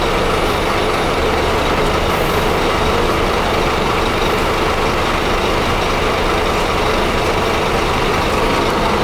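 Scania F250 bus's DC9 nine-litre five-cylinder diesel engine (250 hp, Euro 5) running steadily.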